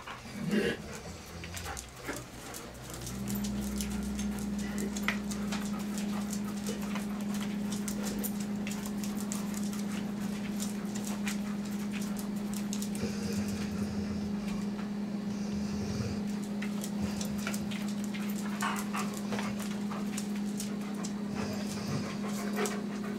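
German Shepherds circling on a tile floor: claws clicking and skittering, with panting. A steady low hum comes in about three seconds in and stays.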